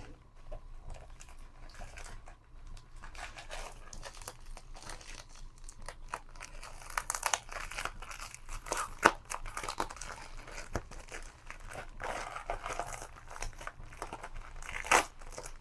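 A heavily taped mail package being worked open by hand: the packaging crinkles and tears, with scattered sharp clicks and snaps. It gets busier and louder from about seven seconds in.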